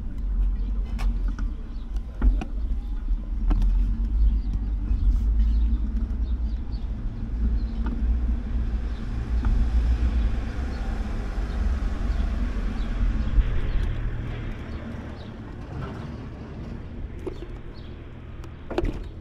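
A car driving past on the street, its tyre and engine noise swelling and then fading about halfway through, over a steady low rumble.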